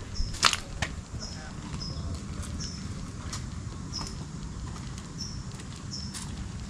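A small bird chirping: short, high chirps repeated roughly once a second over a steady low rumble. A few sharp clicks come in the first second.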